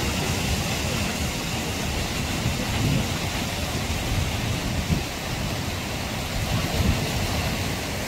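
Steady rush of water from a mountain waterfall and the rocky stream below it, a constant hiss with an uneven low rumble underneath.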